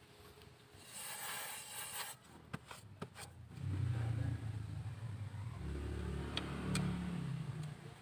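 Low rumble of a motor vehicle's engine from about three and a half seconds in until near the end; it is the loudest sound. Before it come a brief rustle and a few light clicks as disc brake pads are handled.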